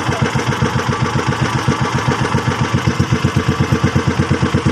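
Engine of a motorized outrigger boat (bangka) running steadily underway, a fast, even chugging.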